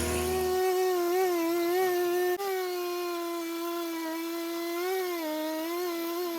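Gas chainsaw running at high revs, a steady whine whose pitch dips briefly several times as it takes load in the wood.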